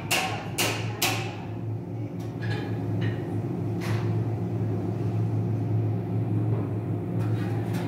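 Hammer striking an anvil in a forge: three quick blows in the first second, then a few scattered lighter strikes. A steady low machine hum runs underneath.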